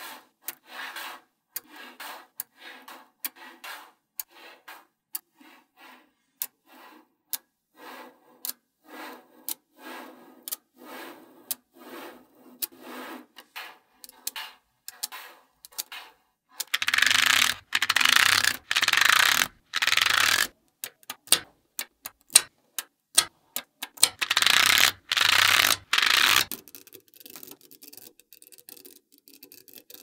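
Small metal magnetic balls clicking and snapping together as they are pushed into chains and flat sheets, a few sharp clicks a second. Past the middle come two louder stretches of dense rattling clatter, each a few seconds long, as rows of balls shift and settle against the sheet, then softer ticking near the end.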